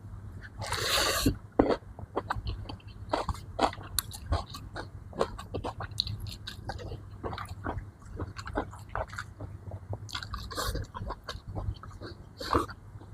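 Close-miked eating: irregular wet chewing and mouth clicks over a steady low hum, with a longer noisy burst about a second in.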